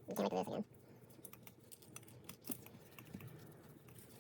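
A short spoken sound near the start, then light scattered clicks and taps of metal hand tools and small valve-train parts being handled while valve stem seals are pressed onto a cylinder head.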